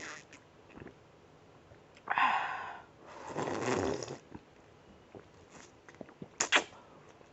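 A person making loud slurping and snorting noises while drinking: two rough, breathy bursts a couple of seconds apart, then a few sharp gulping clicks near the end.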